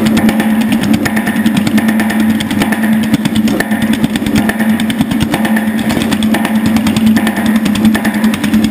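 Power hammer running, its ram pounding in rapid, even blows on an 18-gauge cold-rolled steel gas-tank panel as the panel is shaped under the dies, over a steady hum.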